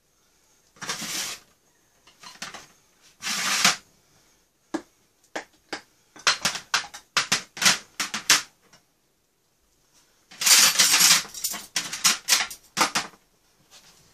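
Plastic food-container lids and dishes being handled on a metal tray: a run of quick clicks, knocks and clatters, with a longer, louder rattling burst about two-thirds of the way through.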